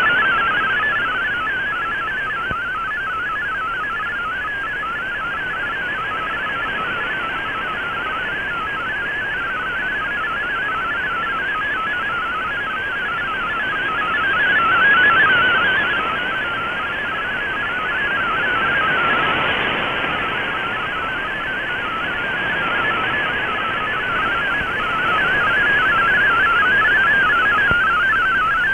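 MFSK32 digital text signal on shortwave, heard through an Icom IC-R8600 receiver: a fast, continuous warble of hopping tones around 1.5 kHz over a hiss of band noise. It swells and fades as the signal varies.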